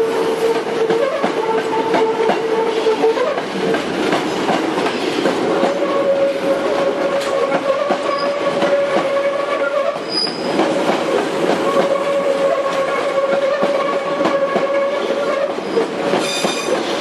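Hankyu Railway electric train moving past close by, its wheels rumbling and clicking over the rails, with a steady tone running through it that steps up slightly in pitch about five seconds in.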